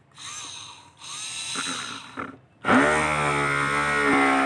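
Homemade 12 V drill built on a 775 DC motor, pulsed on in two short whirring bursts. About two and a half seconds in it switches on fully, its pitch rises quickly and then settles into a steady motor hum as the bit bores into the board.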